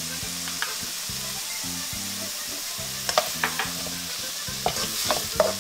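Crumbled tofu sizzling in a hot non-stick wok while it is stir-fried with a spatula. From about three seconds in, the spatula scrapes and knocks against the pan.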